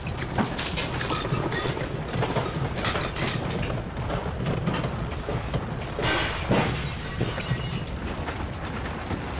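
A steady low rumble under a constant clatter of rattling, crashing knocks, with a heavier crash about six seconds in: an earthquake shaking things.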